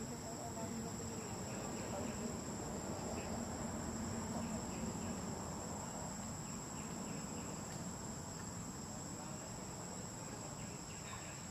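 Steady, high-pitched drone of insects, over a faint low hum.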